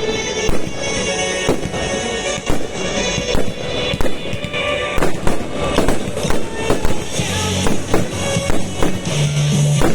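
Fireworks going off in irregular bangs, one or two a second, over loud pop music with a heavy bass line that grows stronger in the second half.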